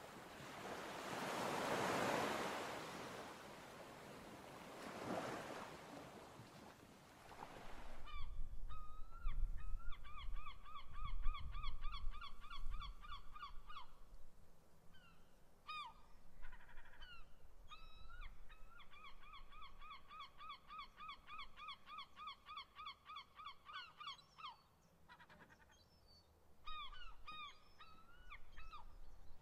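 Surf washing in for the first several seconds, then a bird giving two long runs of rapid repeated calls, about four a second, with a few scattered calls between them, over a low wind rumble.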